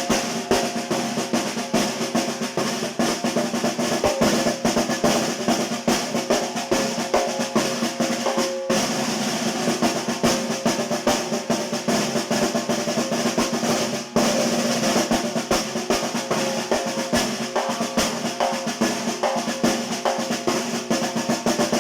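Snare drum (tarola) played in fast, continuous rolls and patterns, with a steady ringing tone under the strokes and two brief breaks. The drum sounds out of tune because its stripped tension screws won't hold the head's tuning.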